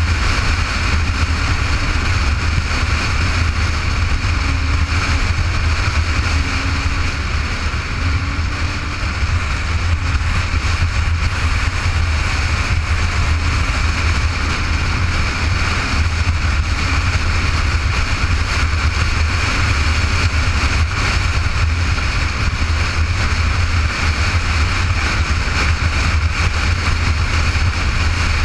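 Motorcycle cruising steadily at road speed: engine running under wind rushing over the bike-mounted camera's microphone, a constant loud low rumble.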